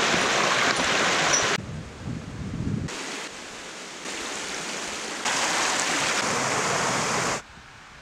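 Small stream running and splashing over rocks, a steady noise of flowing water that changes abruptly in loudness several times.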